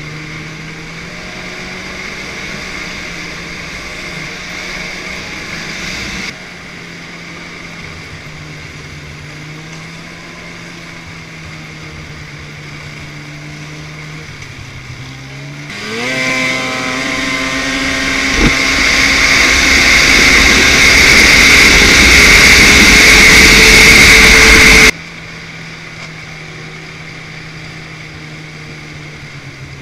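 Snowmobile engine running steadily along the trail, its level dropping abruptly about six seconds in. Just past halfway it accelerates hard, the pitch climbing and the engine growing loud for about nine seconds, with one sharp knock early in the run. It then cuts back suddenly to a steady, quieter drone.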